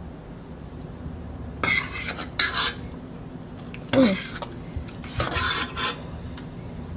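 A metal fork stirring and scraping sauce-coated noodles in a ceramic bowl, in a few short scrapes: a pair about two seconds in, the loudest at about four seconds, and another near the end.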